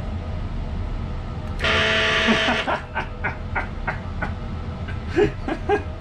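A 12-volt DC vibration motor with an offset weight, fixed inside a severed-hand prop, spins up for about a second and buzzes the hand, followed by a run of light clicks and knocks, about three a second.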